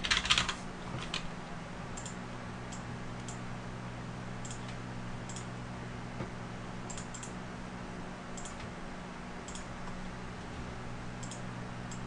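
Computer keyboard keys pressed one at a time as text is typed in, scattered single clicks about a second apart, over a steady low electrical hum.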